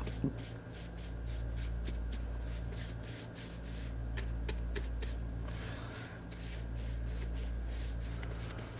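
Faint scratchy swishes and ticks of a bristle brush spreading thick wood stain over a wooden raised panel and into its corners, over a steady low hum that swells and dips about every three seconds.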